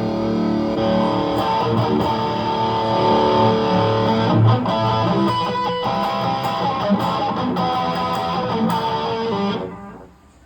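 Electric guitar played through a Valeton GP200LT multi-effects processor, sustained notes and chords ringing out, fading away about a second before the end.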